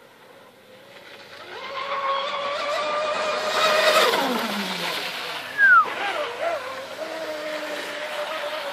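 Radio-controlled catamaran speedboat's motor whining at speed, growing louder as the boat approaches and dropping in pitch as it passes about four seconds in, then going on more faintly as it runs away. A brief loud high chirp, falling in pitch, cuts in shortly after the pass.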